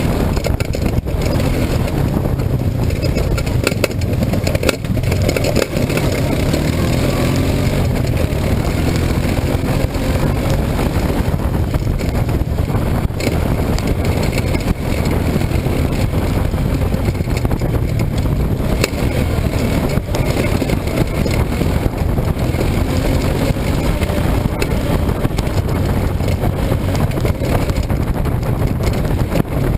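A vehicle being driven steadily, engine running with continuous driving noise and no letup.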